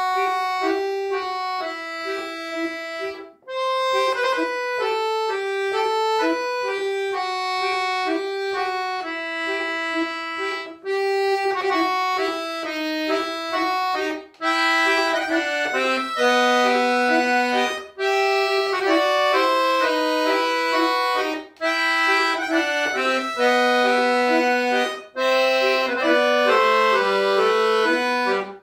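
Solo accordion playing a classical piece: phrases of held notes and chords in the middle and upper register, broken by brief pauses several times, with lower notes joining in during the second half.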